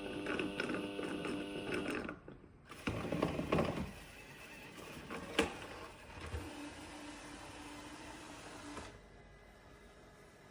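Xiaomi robot vacuum starting its mop-pad cleaning cycle: a steady motor hum that cuts out about two seconds in, then mechanical creaks and rattles, a sharp click, and a faint hum that stops near the end. It is the mop-washing step of a charge-then-clean cycle that the robot repeats in an endless loop.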